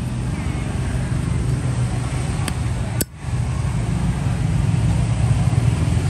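A steady low rumble, with a sharp click about two and a half seconds in and another about three seconds in, followed by a brief drop in level.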